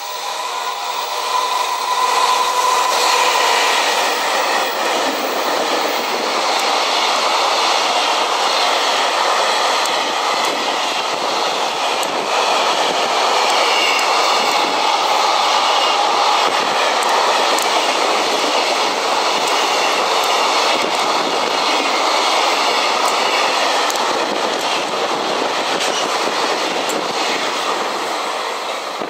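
JR Freight EF210 electric locomotive and its train of container flat wagons passing through without stopping: a loud, steady rumble with the clickety-clack of wheels over the rail joints. It builds in the first couple of seconds and drops away near the end as the last wagon clears.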